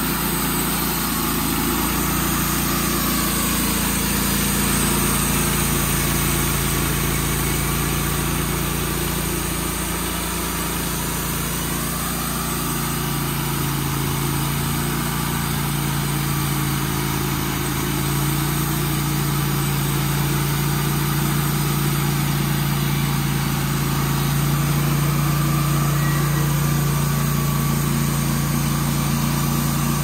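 Engine of a Wood-Mizer portable band sawmill running steadily while the band blade cuts lengthwise through a small pine log, squaring a face 90 degrees to the first flat.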